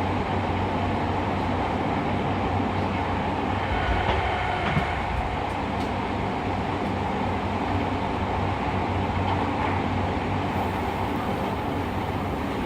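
Fukuoka City Subway 2000 series train running in the tunnel: steady wheel and motor running noise with a low hum and a few faint clicks from the wheels on the rails.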